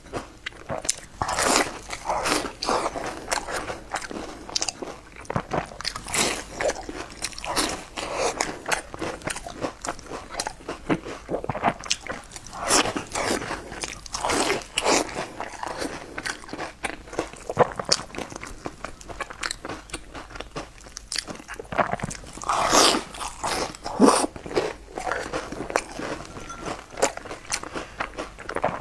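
A person biting and chewing crunchy food close to the microphone: an unbroken run of crisp crunches, with louder bites every few seconds.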